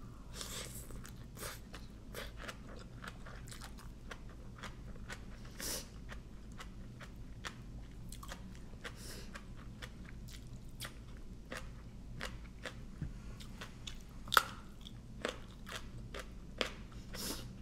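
A person eating som tam with raw vegetables close to the microphone: a run of crisp crunching bites and chewing, with one louder crunch about 14 seconds in.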